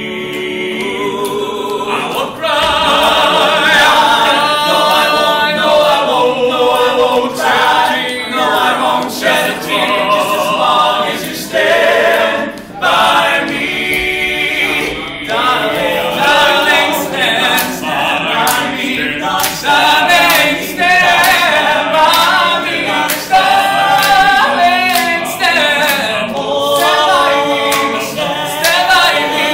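A cappella vocal group singing, voices without instruments.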